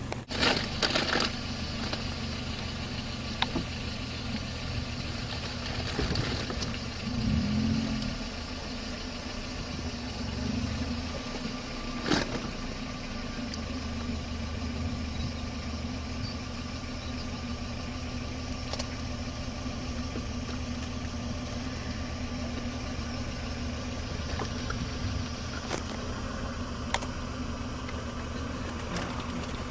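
Vehicle engine idling steadily, with a few sharp clicks and knocks, the loudest right at the start and about twelve seconds in.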